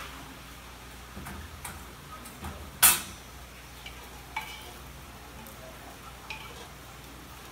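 A black spoon stirring a thick beef, potato and carrot stew in a pressure-cooker pot, with soft wet scrapes and light knocks against the pot and one sharp knock about three seconds in.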